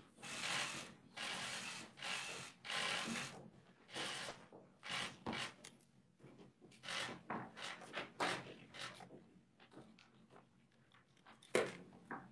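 Rustling and rubbing as papers and the lectern microphones are handled, coming in short irregular bursts, with a sharp knock near the end.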